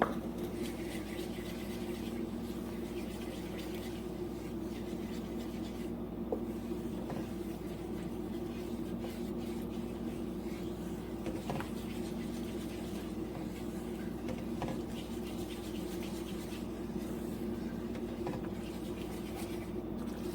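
Spoon or spatula scraping and stirring in a pot as cheese is mixed into simmering cream sauce, with a few light clicks, over a steady low hum.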